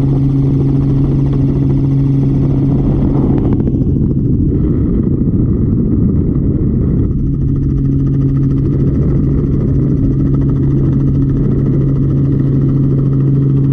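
A steady low engine drone holding one pitch, with a louder rush of noise from about four to seven seconds in.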